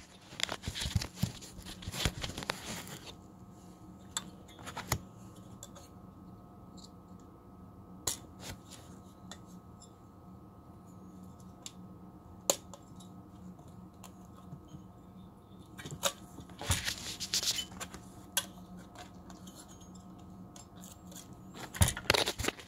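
Scraping and sharp plastic-and-metal clicks of hands pressing the clip-on heatsink back down onto an Intel Arria 10 GX FPGA development board. The sounds come in a cluster at the start, again about two-thirds of the way through and at the very end, with single clicks between them over a faint steady hum.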